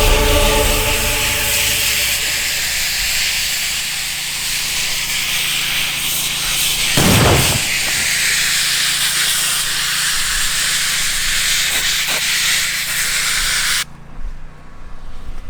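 Pressure washer spraying a high-pressure jet: a steady loud hiss over a low motor hum, with a short knock about seven seconds in. The jet cuts off suddenly near the end.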